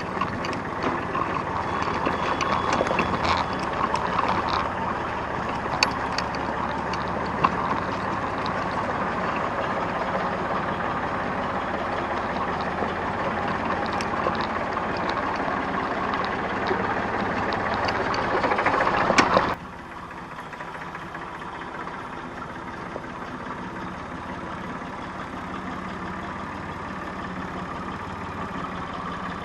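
Tractor diesel engine running steadily. About two-thirds of the way through, the sound drops suddenly to a quieter, steady engine sound.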